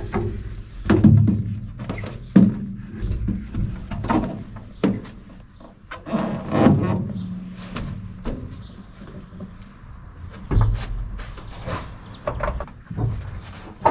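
Irregular clanks, knocks and thuds of galvanized steel window-transport racks being handled and shifted on a truck trailer's bed.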